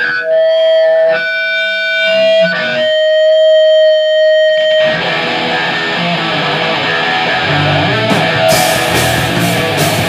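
Live punk/hardcore band. A distorted electric guitar holds sustained, ringing notes for the first few seconds, then at about five seconds the full band comes in with dense distorted guitar and drums. Near the end a cymbal is struck about twice a second.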